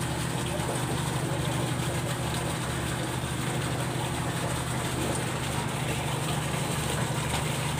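A ship's engine idling nearby: a steady low drone with an even, pulsing beat underneath.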